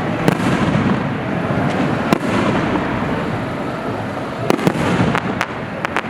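Fireworks display: a continuous dense crackle and rumble with sharp bangs, several coming in quick succession in the second half.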